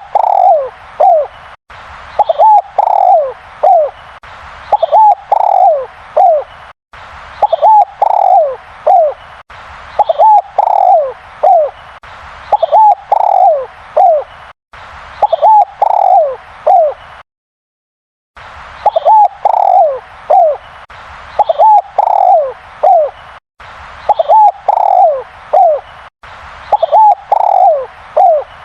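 Spotted dove cooing very loudly, repeating the same phrase about every two seconds: a few quick notes and then a longer falling coo. The sound cuts out completely for about a second a little past the middle.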